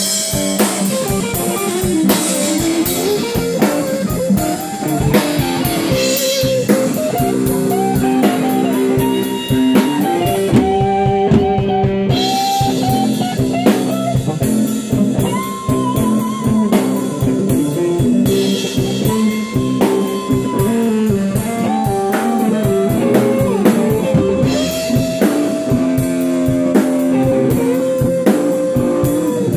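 Electric guitar and drum kit jamming: a solid-body electric guitar through an amplifier plays lead lines of sustained notes that bend up and down and waver with vibrato, over drums keeping a steady beat with cymbals.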